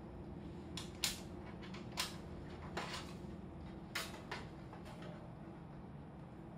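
Sharp clicks and knocks of cables, connectors and parts being handled inside a desktop computer case as the connections are checked and pressed home, about five at uneven intervals over a steady low hum.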